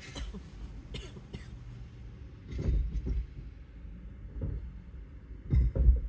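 A person coughs twice: a double cough about two and a half seconds in and a louder one near the end, over a low steady rumble.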